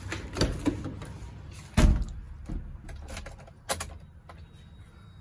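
Maruti Zen's car door being opened and shut as someone gets into the driver's seat, with a low thump about two seconds in, followed by a few lighter clicks and knocks from inside the car.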